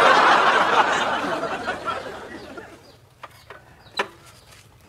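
A burst of group laughter, like a canned laugh track, loud at first and fading out over about two seconds. A couple of sharp clicks follow near the end.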